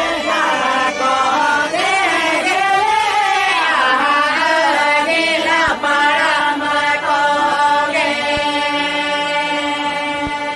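Chant-like singing with long, wavering held notes over a steady held note.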